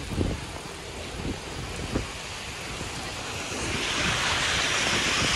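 A steady rush of wind and heavy rain, with wind buffeting the microphone and some low thumps near the start; the hiss swells and grows louder a little past halfway.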